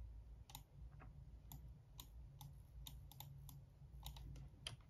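Faint, irregularly spaced clicks from a computer keyboard and mouse, about a dozen single clicks over a low steady hum.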